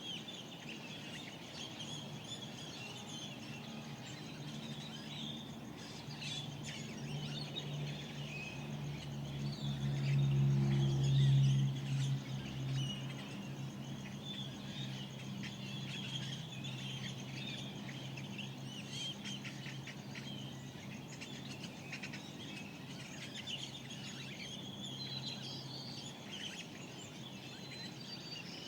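Desert birds calling at dawn: many short chirps and twitters overlapping throughout. Under them a low steady hum swells, peaks about a third of the way in, then fades away.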